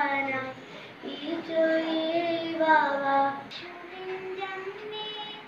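A young girl singing solo, in long held notes that slide between pitches. About three and a half seconds in, the singing cuts to a second girl, singing more quietly.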